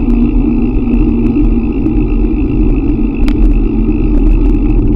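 Wind buffeting the microphone of a moving bicycle, a steady low rumble with no break.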